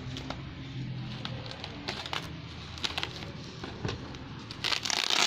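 Scattered clicks and rustles of a cardboard parcel being handled, with a louder stretch of rustling near the end, under a faint steady low hum.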